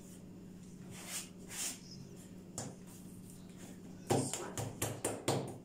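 Hands patting and pressing a soft ball of yeast dough flat on a silicone baking mat: a soft rustle of the plastic cover about a second in, then a quick run of short slaps near the end. A steady low hum runs underneath.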